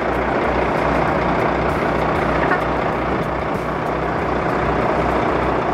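Fishing boat's diesel engine running steadily with a low, even throb.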